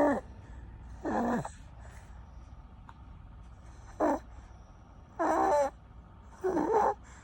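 Six-month-old baby snoring: a short pitched snore on each breath, about five in all, with a longer pause between the second and third.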